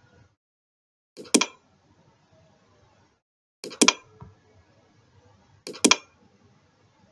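Computer mouse clicked three times, about two seconds apart, each click a quick double tick of the button going down and coming back up.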